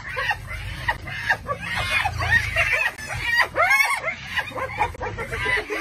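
A pack of spotted hyenas calling in a frenzy, giggling and squealing in many short, overlapping yelps that rise and fall in pitch, with a low rumble underneath. It is the excited noise of hyenas mobbing lions over a kill.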